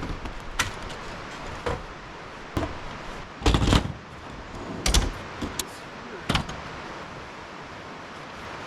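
Scattered knocks and clunks of a folding camp chair being unfolded and set up, about seven in all, with the loudest short clatter a little past three seconds in.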